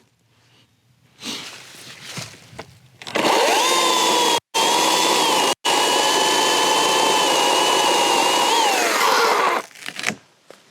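Small chainsaw spinning up about three seconds in and running at full speed with a steady high whine while making the back cut through to the hinge of a tree being felled. The sound drops out twice for an instant, then winds down near the end.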